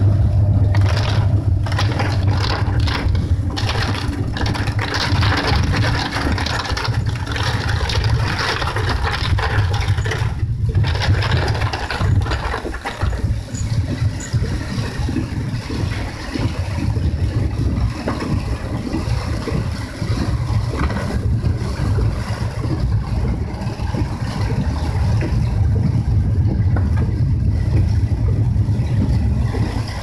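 Heavy typhoon rain pelting a moving car's roof and windshield, heard from inside the car over a steady low rumble of engine and road noise, with the windshield wipers sweeping. The rain hiss is thickest in the first ten seconds or so.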